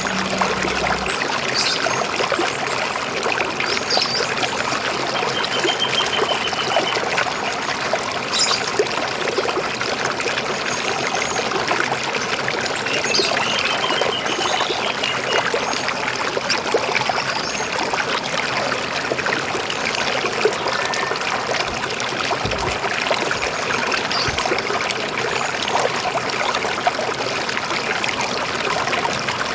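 River water flowing in a steady rush, with a few short, high bird chirps and trills here and there.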